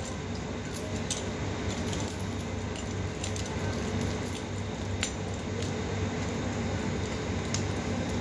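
A dog's metal chain collar and chain leash clinking and jingling in a few short rattles as the dog moves, over a steady low background hum.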